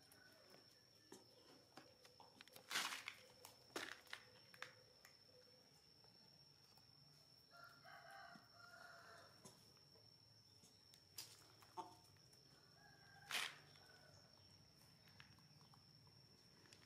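A rooster crowing faintly once, about halfway through, over a steady high-pitched whine, with a few short sharp knocks.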